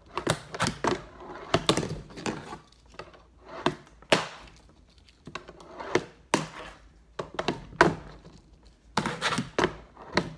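Fingerboard clacking and knocking on a cardboard board-game box and the table beneath it: a series of sharp pops, flips and landings from repeated kickflip-to-manual attempts, with short quieter pauses in between.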